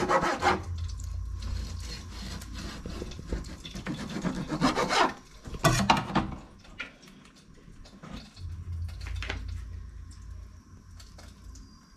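Rubbing and scraping handling sounds with a few light knocks, as spring roll pieces are shifted around on a ceramic plate. The loudest scrapes come at the start and around four to six seconds in.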